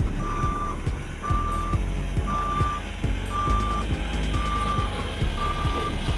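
Reversing alarm of a heavy construction vehicle beeping steadily, about one half-second beep a second, over the low running of its diesel engine.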